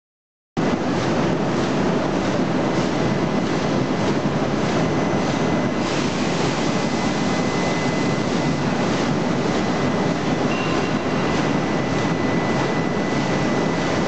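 Forge shop machinery running: a loud, steady industrial din with faint regular knocks about twice a second and a thin steady high whine, starting half a second in.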